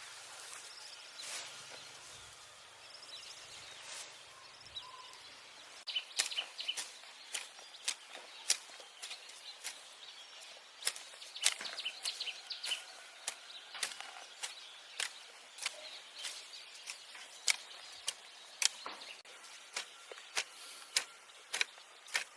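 A run of sharp, irregular knocks, roughly one or two a second, starting about six seconds in, with birds chirping.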